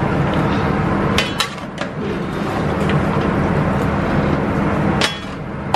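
Metal spatula clanking against a large aluminium stockpot while a big batch of meat and onions is stirred. There are a few sharp knocks about a second in and another near the end, over a steady loud roar with a low hum.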